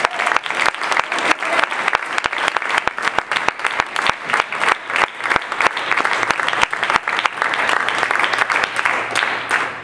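Small crowd of spectators applauding a won point in a table tennis match: many hands clapping steadily, swelling a little near the end.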